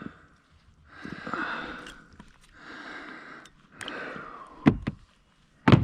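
A person breathing heavily in a few long, breathy draws, then two sharp knocks near the end, the second the loudest.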